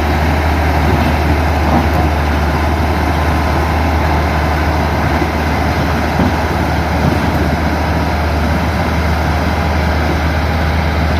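Motor grader's diesel engine running steadily under load, a deep constant drone with the rumble of the machine working earth.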